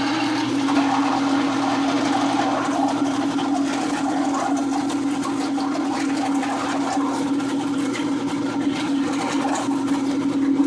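Drain-cleaning cable machine running steadily, its motor spinning the cable down a drain clogged with tree roots, with a constant even hum.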